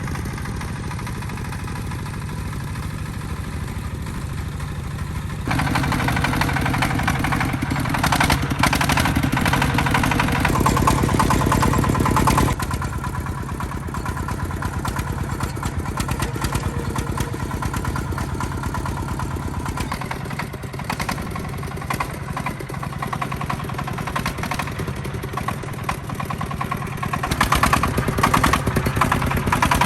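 Tractor engine running steadily. Its sound changes abruptly and gets louder a few times, then quieter again.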